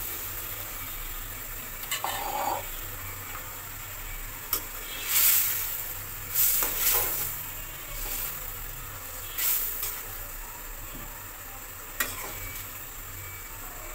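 A metal spatula scraping and knocking in a metal kadai while fried fish are stirred into boiling curry gravy, over a steady sizzle. The spatula strokes come irregularly, about seven times.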